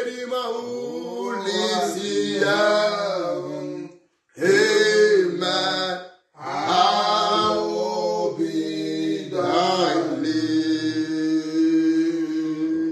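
A man singing a worship chant in long, held notes, breaking off briefly twice.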